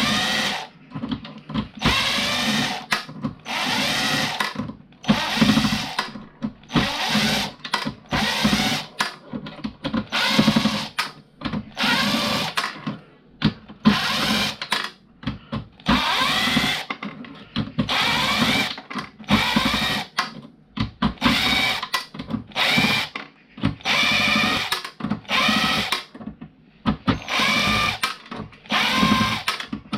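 Cheap drill used as a screwdriver, running in many short bursts about a second apart as it backs screws out of a fuse board.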